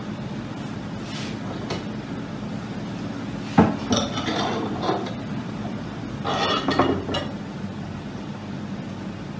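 Wooden-jawed bar clamps clacking and clinking as they are set one after another to clamp braces onto a guitar top: a sharp knock about three and a half seconds in, then two bursts of clattering.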